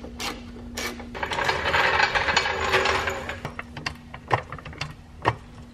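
Hand ratchet wrench clicking under a car: a dense run of fast ratcheting about a second in that lasts some two seconds, followed by a few scattered single clicks and knocks.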